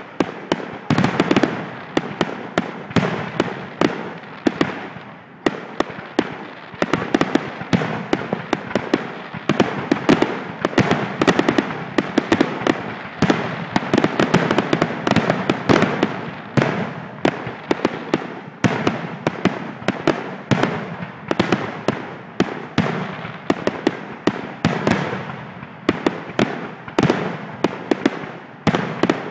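Aerial fireworks going off in a dense, continuous barrage: many sharp bangs in quick succession with crackling between them, barely pausing.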